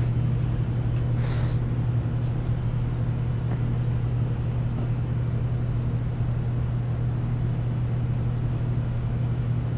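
Steady low mechanical hum and rumble, with a short hiss about a second in.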